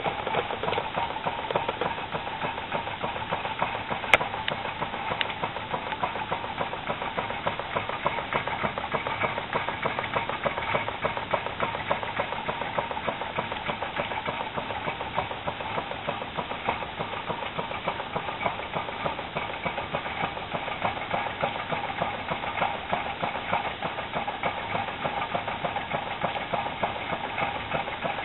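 Homemade Stirling engine with a CD flywheel and wire crank running steadily, its wire crank and linkages giving a fast, steady clatter of small clicks. One sharper click about four seconds in.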